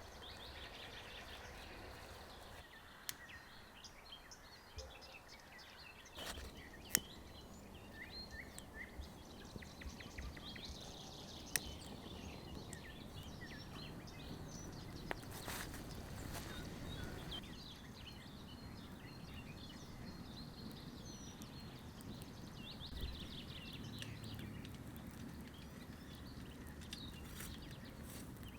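Small forest birds chirping and trilling on and off, with a few sharp clicks or knocks and a couple of brief rustling rushes from something being handled close by.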